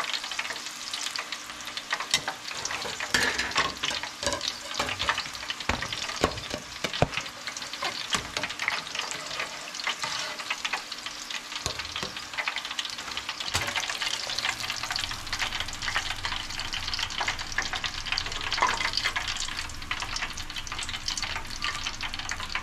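Tempura frying in hot deep-frying oil: a steady, dense crackling sizzle with a few sharper knocks in the first third.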